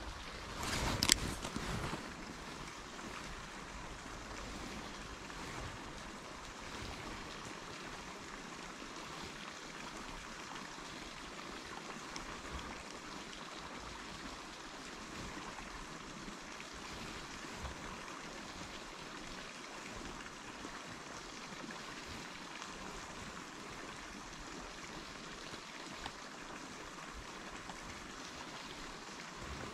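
Steady running water, with a short loud knock about a second in and a few faint ticks later.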